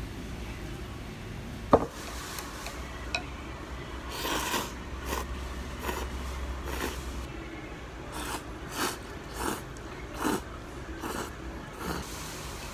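A person slurping ramen noodles: a dozen or so short, noisy slurps spaced about half a second to a second apart, following a single sharp knock about two seconds in.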